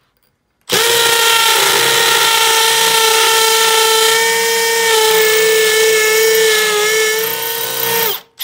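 Makita 18V cordless hammer drill boring a hole into a concrete block with a masonry bit. The motor starts a little under a second in, runs loud and steady under load for about seven seconds, then stops and briefly starts again near the end.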